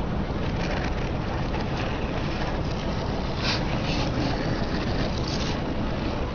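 Car rumbling steadily as it rolls slowly over crushed debris, with a few faint crackles as the tyre presses onto plastic gum bottles in the last few seconds.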